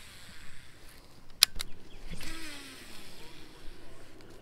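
Baitcasting reel on a cast: a sharp click about a second and a half in, then the spool whirring for about a second and a half, its pitch falling as it slows.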